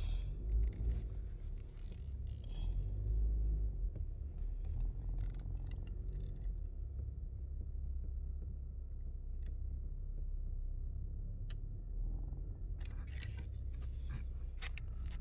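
Low, steady rumble of a car's engine and tyres heard from inside the cabin as the car is driven slowly into a parking space. Scattered soft clicks and rustles come in the first half and again near the end.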